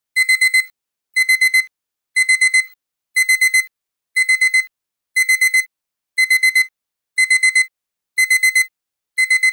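Digital alarm-clock beeping that marks the end of a countdown timer: a high tone in groups of four rapid beeps, one group about every second, starting just as the time runs out.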